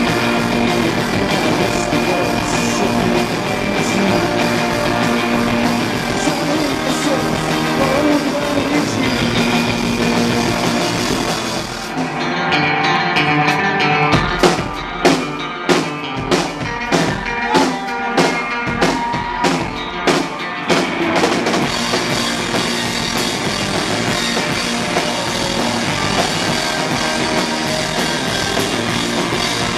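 Live rock band playing loud: electric guitar, bass guitar and drum kit. About twelve seconds in the band thins out, then hits together in a run of about ten sharp accents, more than one a second, before the full band comes back in at about twenty-two seconds.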